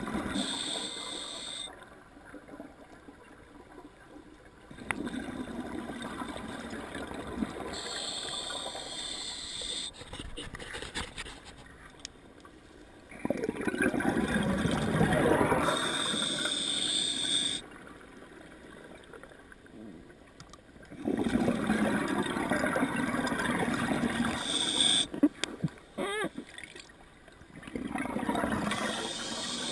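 Open-circuit scuba breathing underwater. Short hissing inhalations through the regulator alternate with louder gurgling bursts of exhaled bubbles, in a slow cycle of about one breath every seven or eight seconds.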